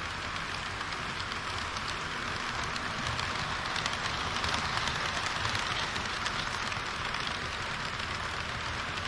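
HO-gauge model train running on the layout track: a steady rolling rush of wheels on rail with a low motor hum, growing a little louder around the middle.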